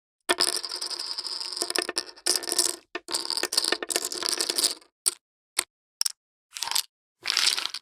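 Poker chips clicking and clattering against each other. A run of rapid clicks lasts about two and a half seconds, then comes a second burst. After that there are three single sharp clicks and two short clatters near the end, each set off by dead silence.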